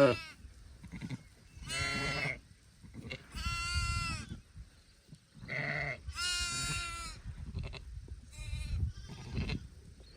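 Sheep and young lambs bleating: about six separate calls of differing pitch, one after another.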